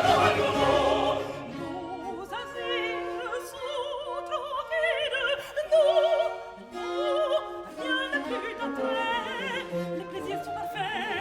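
Baroque opera music: a loud orchestral passage for about the first second, then a high voice singing long notes with vibrato over period-instrument orchestra accompaniment.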